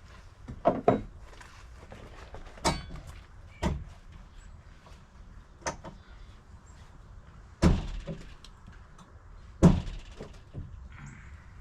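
Wooden knocks and thuds from tearing out a deck's boards and frame: about seven sharp, separate impacts spaced a second or two apart, the two loudest in the second half.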